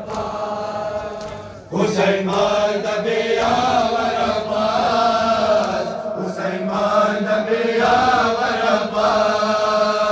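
A male voice chanting a noha, a Shia mourning lament, in long drawn-out notes. It drops briefly about a second and a half in, then comes back louder.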